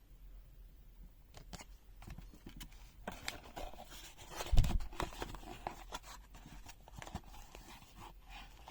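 Items being handled and taken out of a product box: paper and plastic rustling with light clicks and knocks, and one dull thump about halfway through.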